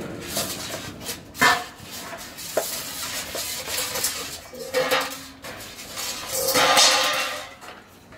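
Stainless steel dog food bowl clanking and clattering on a tiled floor as a large dog eats from it: several sharp metallic clanks that ring briefly, then a longer, louder ringing clatter near the end.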